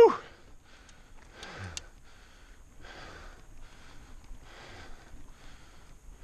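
Mountain biker breathing hard and rhythmically, about one breath a second, close to a helmet-mounted camera's microphone while riding. A short, loud yelp comes at the very start.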